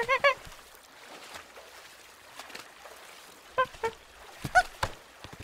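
Cartoon characters' squeaky vocal sounds: three quick high chirps of a cartoon laugh at the start, then two more short squeaks a few seconds later, with a few light taps near the end over a faint flowing-water background.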